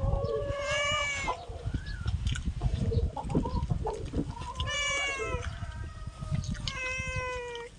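A cat meowing three times, each call drawn out and slightly falling at the end, begging for food at a meal. Soft handling and chewing noise sits underneath.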